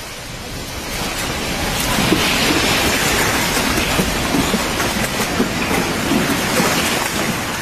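Supermarket shelving and the goods on it rattling in a loud, continuous rumble during earthquake shaking. It swells about two seconds in and eases near the end.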